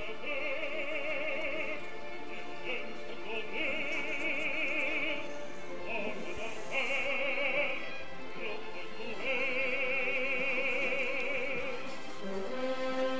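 Operatic singing with orchestral backing: a voice holds long notes with a wide vibrato, in four drawn-out phrases.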